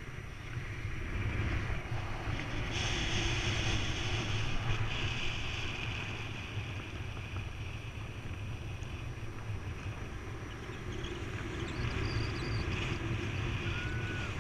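Wind rushing over a camera microphone on a paraglider in flight: a steady low rumble with a hiss on top. The hiss grows louder about three seconds in, eases off, then swells again near the end.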